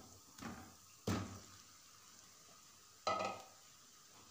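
Pieces of marinated chicken dropping from a plate into a pan of hot oil and onions, three times, each landing a sudden hit that fades off in a short sizzle; the loudest two come about a second in and about three seconds in.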